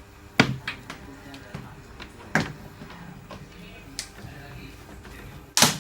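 Sharp plastic clicks and knocks from a power plug and cable being handled and pushed into a wall socket, about five of them, with the loudest near the end. Faint music plays underneath.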